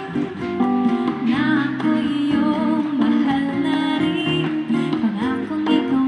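Bossa nova song with plucked acoustic guitar and a singing voice, played through the Pioneer XC-HX55 mini speaker system's speakers and picked up by a microphone in the room.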